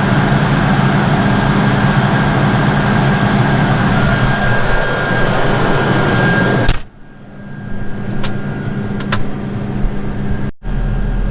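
John Deere 9986 cotton picker running steadily, a loud machine drone with a constant whine over it. About two-thirds of the way through it cuts off abruptly to a much quieter steady hum with a couple of sharp clicks.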